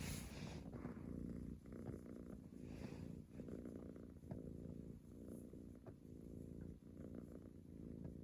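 Scottish Fold kitten purring: a low, steady rumble.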